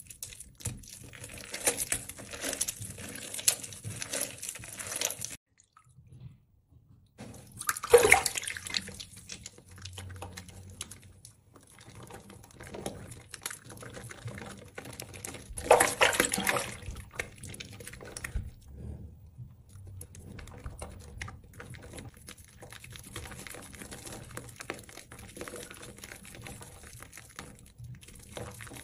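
Hands squeezing and lathering water-soaked, mushy bar soap in a basin of water, making wet squishing and sloshing. A couple of louder squishes come about a quarter and about halfway through, and there are a few brief pauses.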